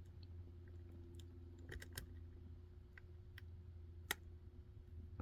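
Faint, scattered clicks of a lock pick and tension tool working the pins of a Mul-T-Lock Interactive lock cylinder, with a sharper click about four seconds in.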